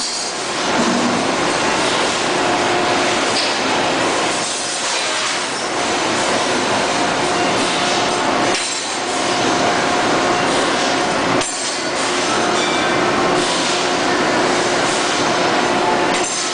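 Loud, steady industrial machinery noise on a factory floor, with a hum that holds one pitch and a few brief dips in level.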